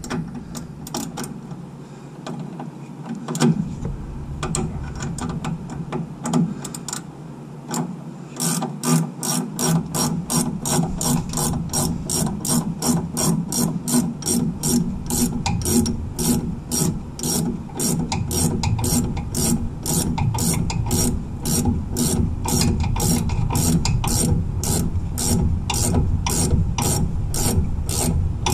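Hand ratchet clicking as it runs the nut down onto the upper stud of a front shock absorber. The clicks are scattered at first, then from about eight seconds in they come as a steady run of short strokes, about three clicks a second.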